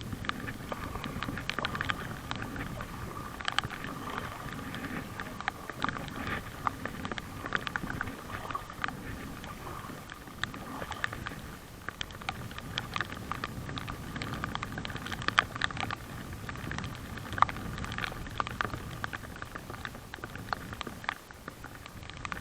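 Raindrops pattering irregularly in many sharp ticks, over a low steady rumble.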